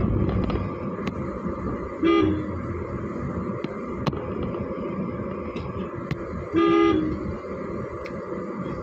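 Steady road and engine noise of a car driving in town traffic, with two vehicle horn toots: a short one about two seconds in and a longer one near seven seconds.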